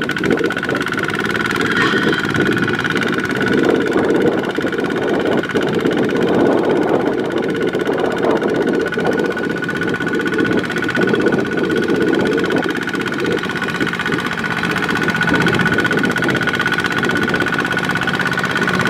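Diesel engine of farm machinery running steadily, with a steady high whine over its rumble.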